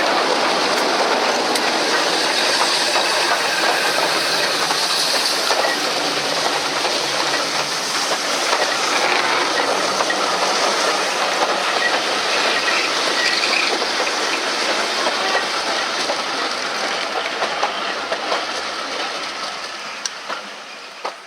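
A train running on the rails, a steady rumble and rattle of wheels on track with a hiss, fading away near the end.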